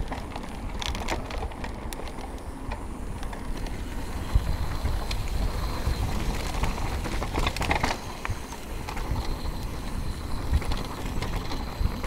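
Downhill mountain bike riding fast down a dirt trail: tyres rolling over the dirt and the bike rattling over bumps, with scattered sharp knocks and a low rumble throughout.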